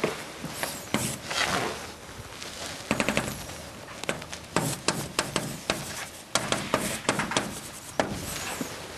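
Chalk writing on a chalkboard: short scratching strokes and sharp taps as symbols and letters are written.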